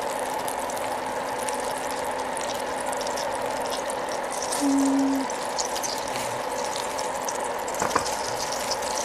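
Butter sizzling as it melts and foams in a hot stainless-steel pan on an induction burner, a steady fizzing with fine crackles. About halfway through, a short steady tone sounds once.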